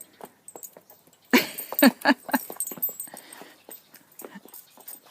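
A dog vocalizing excitedly: a quick run of four or five short yips and whines about a second and a half in, among scattered light clicks.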